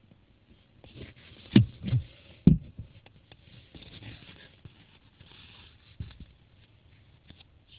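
A few dull, sharp thumps, three close together about a second and a half in and one more about six seconds in, over faint rustling.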